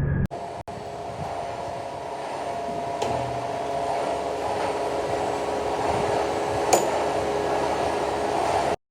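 CNC lathe running a turning cut: steady machine noise with a steady whine, growing a little louder, and one sharp click near the end before it cuts off abruptly.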